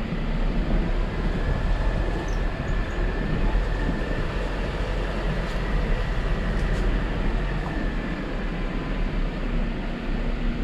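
Jeep Wrangler driving along a dirt forest trail: a steady mix of engine and tyre noise with a strong low rumble.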